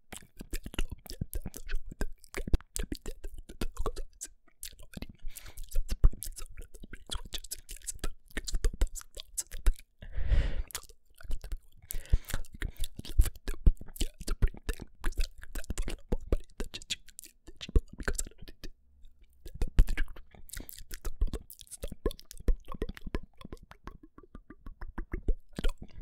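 Fidget cube fiddled close to the microphone: rapid, irregular clicks from its buttons and switches, with a denser, noisier stretch about ten seconds in.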